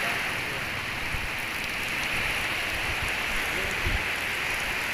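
Steady rushing water noise with faint voices in the distance and a couple of low thuds, about a second in and near the end.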